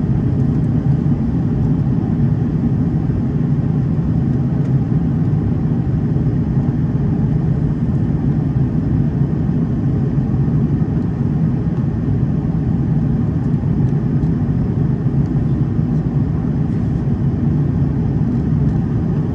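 Steady, even cabin drone of an Airbus A330 in flight, a low rumble of engine and airflow noise heard from inside beside the wing, with the engines at climb power after takeoff.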